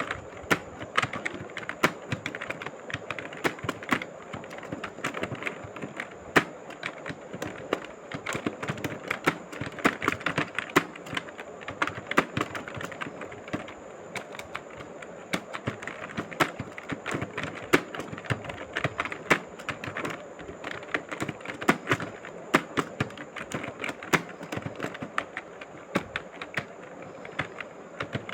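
Typing on a mobile phone's on-screen keyboard: quick, irregular taps and clicks, several a second, with brief pauses between bursts.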